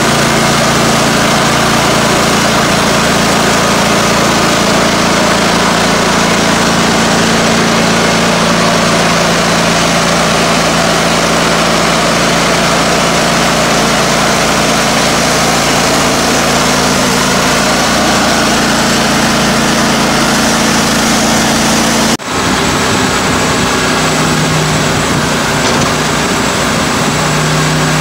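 Timberking 1600 portable band sawmill running steadily, its engine under load as the band blade saws through an oak log. About three-quarters of the way through, the sound cuts out for an instant, then the mill runs on.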